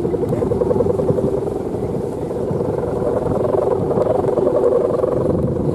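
Humming bow (guangan) on a Balinese bebean kite droning steadily in the wind, its pitch pulsing and wavering slightly, over a low rumble.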